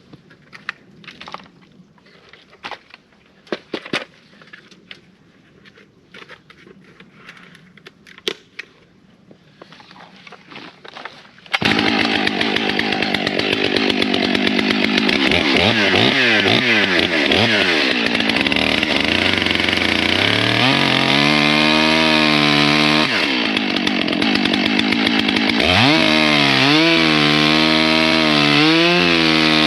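A few faint clicks and knocks, then about a third of the way in a Stihl 661 two-stroke chainsaw comes in loud at high revs. Its engine pitch dips and climbs again several times, as the bar cuts into the wood.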